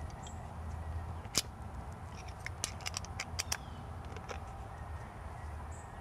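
Plastic in-use cover plate clicking and tapping against a metal weatherproof switch box as it is fitted into place, with a single click and then a quick run of sharp clicks mid-way, over a steady low background hum.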